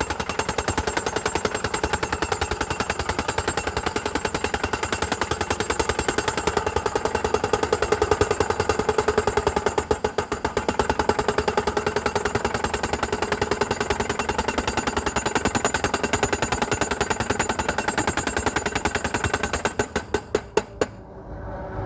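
Leopold 3700 pile driver's hydraulic hammer pounding a steel guard rail post in a rapid, steady run of blows, with a brief falter about ten seconds in. Near the end the blows slow and stop, leaving the machine's engine running.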